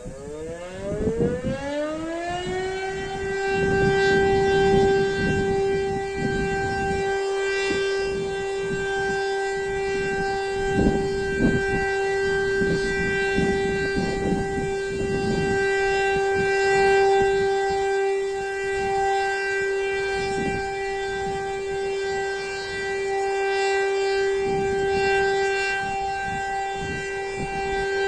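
DS 977 electromechanical civil defence siren starting up: its wail rises in pitch over the first three seconds or so, then holds one steady, loud tone with overtones, the continuous tone of a siren test.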